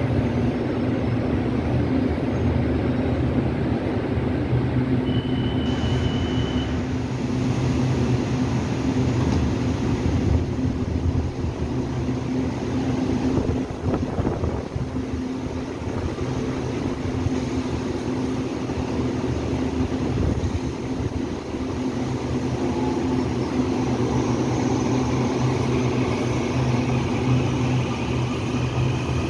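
Taiwan Railway EMU800 electric multiple unit standing at the platform with a steady hum from its onboard equipment, and a short high beep about five seconds in. In the last several seconds rising whines set in from its traction motors as it starts to pull away.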